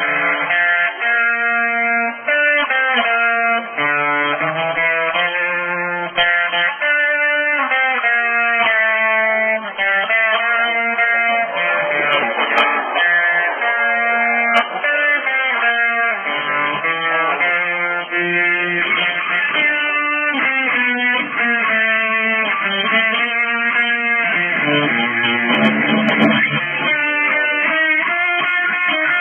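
Guitar music: plucked and strummed guitar playing a continuous run of changing notes and chords.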